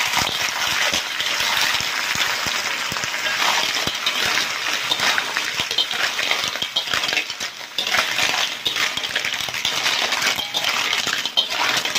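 Lala clams clattering into a metal wok and being stirred with a slotted metal spatula: shells clinking against each other and the pan over a steady sizzle of hot oil.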